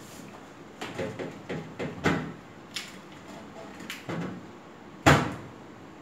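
Plastic parts of a new Samsung refrigerator, its shelves and door bins, knocking and clattering as they are handled. There are several sharp knocks, the loudest about two seconds in and about five seconds in.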